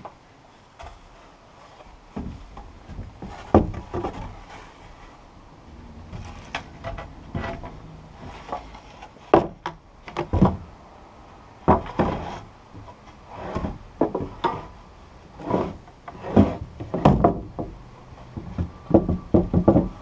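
Wooden floorboards being handled and fitted into place, giving a string of irregular wooden knocks and clatters, some sharp and a little ringing.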